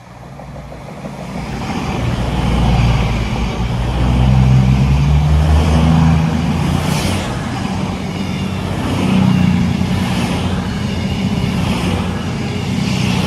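CrossCountry Voyager diesel multiple unit passing close by at a platform, its underfloor diesel engines running under load. It swells over the first couple of seconds as the train comes in, then stays loud, rising again as further cars go past.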